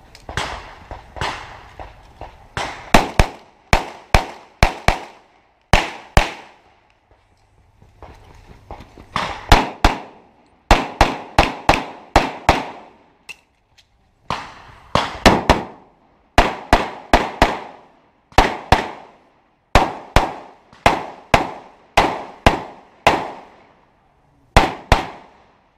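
Pistol shots fired in rapid strings of two to four, over and over, with short pauses between the strings as the shooter changes position during a practical shooting stage.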